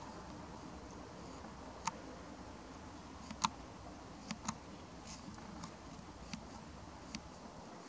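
Faint steady hiss with about eight small, sharp clicks at irregular intervals, the loudest about three and a half seconds in.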